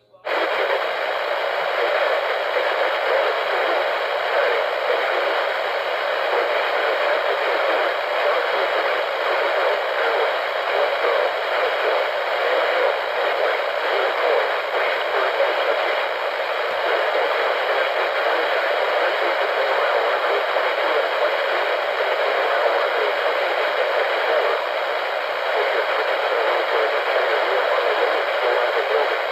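Steady radio static from a receiver with no programme on the channel, cutting in abruptly after a moment of silence at the very start.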